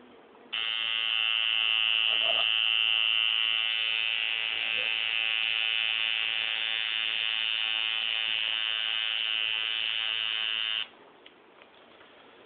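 Tattoo machine buzzing steadily at an even pitch. It is switched on about half a second in and cuts off suddenly about two seconds before the end.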